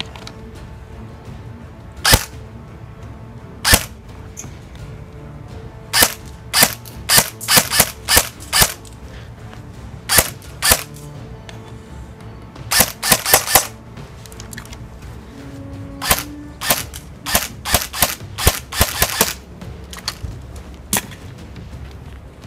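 Airsoft Honey Badger replica rifle firing sharp shots, some single and some in quick strings of several, over background music.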